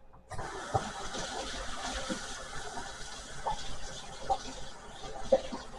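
Kitchen tap running in a steady hiss, starting about a third of a second in, as a soapy sponge is rinsed under it, with small splashes and knocks.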